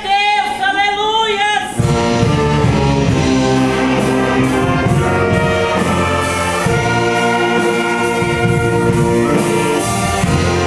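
Church orchestra with trumpets and trombones playing a hymn, entering about two seconds in with full, sustained brass chords. Just before that a single loud voice with wavering pitch is heard.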